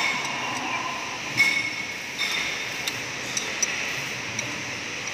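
Metal hand tools clinking against the steel valve train of a forklift engine's cylinder head. There are a few sharp clicks about a second apart, some with a brief metallic ring.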